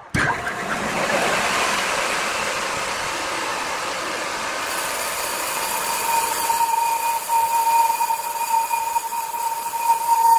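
Horizontal band sawmill's blade cutting lengthwise through a large log, a steady machine noise. About halfway through, a steady high whine joins in and the noise turns choppier.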